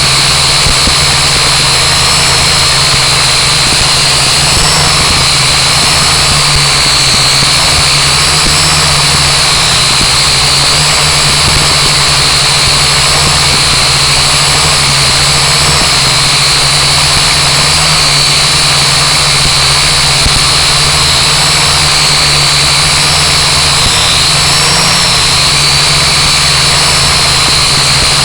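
Blade mQX micro quadcopter's four small electric motors and propellers whining steadily in flight, the pitch wavering slightly as the throttle shifts.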